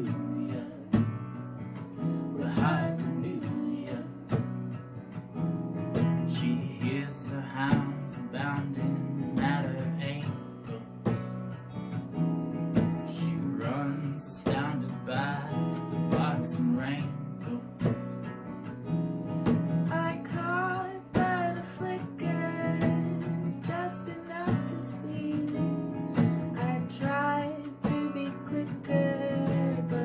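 Acoustic guitar strummed in a steady rhythm, with a voice singing over it: a live acoustic song.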